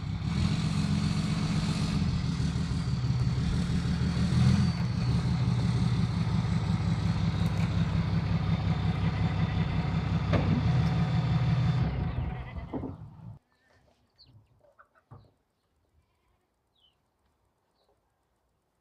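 Power saw running and cutting lumber to length, steady for about twelve seconds, then winding down and stopping, followed by a few faint knocks.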